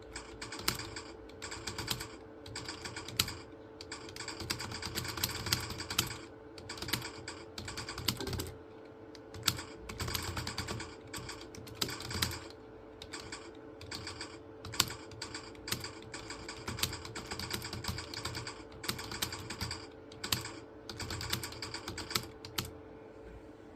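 Typing on a computer keyboard: quick runs of keystrokes broken by short pauses, with now and then a louder key strike, over a steady faint hum. The typing stops shortly before the end.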